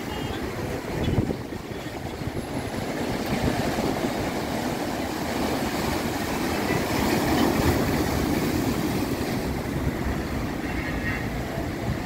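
Rough sea surf breaking against a rocky shore, with gusty wind buffeting the microphone as a steady uneven rumble.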